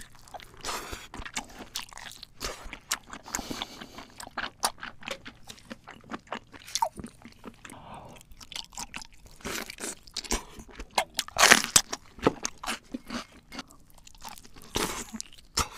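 Close-miked eating of large red prawns: wet chewing and sucking with many sharp crunches as shells and heads are bitten, the loudest cluster of crunches about two-thirds of the way through.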